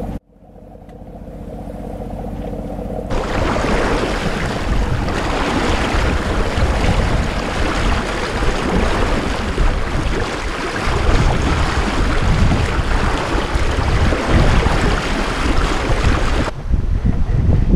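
Wind buffeting the microphone and sea water rushing and splashing against a small sailing yacht's hull in a choppy sea. For the first three seconds the boat's engine runs steadily, before a sudden change to the wind and water noise.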